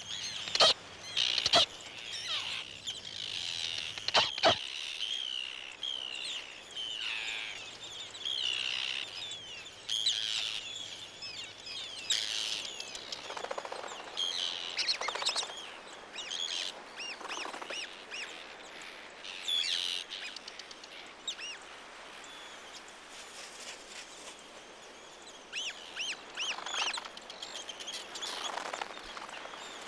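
Arctic terns calling over their nesting colony, many short overlapping calls that rise and fall in pitch: the terns defending their territory. A few sharp clicks come in the first few seconds, and the calls thin out for a few seconds past the middle.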